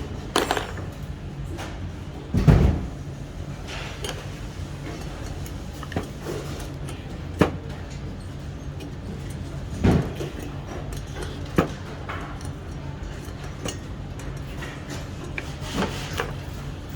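An 8 mm wrench unscrewing a water-tube fitting on an espresso machine boiler: a handful of scattered metallic clicks and knocks, a few seconds apart, over a steady low hum.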